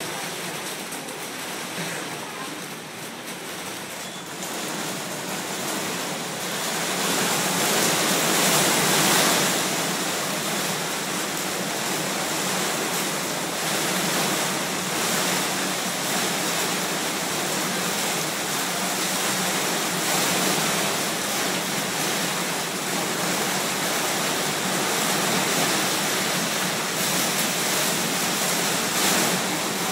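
Heavy rain pouring down as a steady hiss, growing louder about six seconds in.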